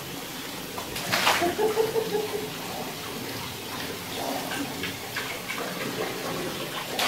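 Water splashing in a bathtub: a loud gush about a second in as water is poured over a person, then softer splashes and trickling.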